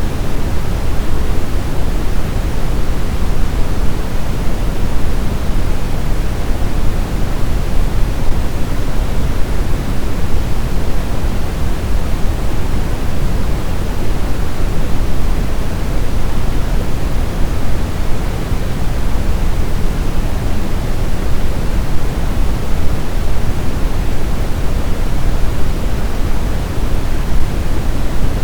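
Steady synthetic pink-type noise, a constant even hiss weighted toward the low end, played as a white-noise sleep sound.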